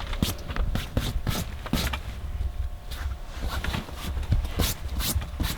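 Irregular clicks and knocks of a partly opened can of chili being handled and set on a heater, over a steady low rumble.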